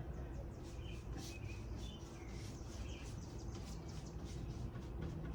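Paintbrush strokes scratching repeatedly on wood as primer is brushed onto the table, with birds chirping a few times in the background.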